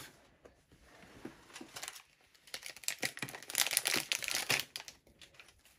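Thin plastic packaging crinkling and rustling as it is handled, with a few light clicks at first and a denser spell of crinkling from about two and a half seconds in, lasting roughly two seconds.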